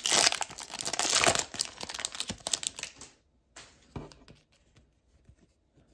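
A plastic trading card pack wrapper crinkling and tearing as the pack is opened. The noise stops about three seconds in, followed by a few faint light taps.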